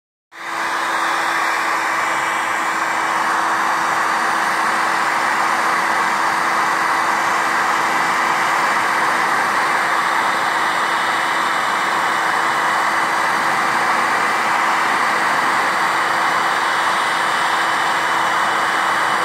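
Electric heat gun blowing hot air: an even fan hiss with a steady motor hum, coming on at the start and then running without change.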